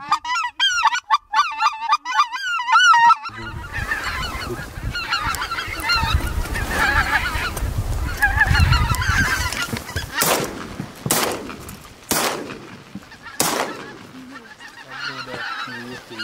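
A hand-blown goose call sounding rapid short honks for about three seconds. Then a flock of geese, plausibly white-fronted geese, honks over a low wind rumble. Four shotgun shots ring out over about three seconds in the middle, and the honking goes on after them.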